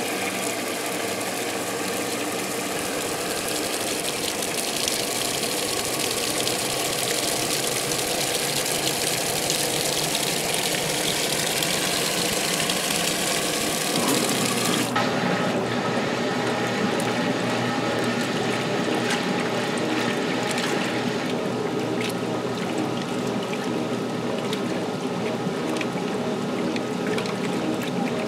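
1978 Maytag LA806 top-load washing machine filling its tub with warm water for a large load: a steady rush of water pouring in. About halfway through, the rush turns duller.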